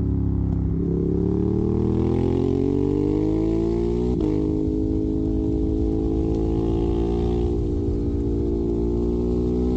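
Ducati Monster 821's L-twin engine through a Termignoni exhaust, pulling hard with its pitch rising steadily. About four seconds in it drops sharply at an upshift, then runs on at a nearly steady pitch.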